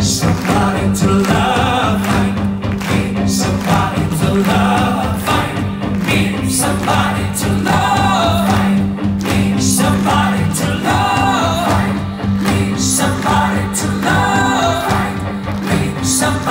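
Live rock band playing: a male lead singer over electric guitar and drums, heard from the audience in a theatre hall.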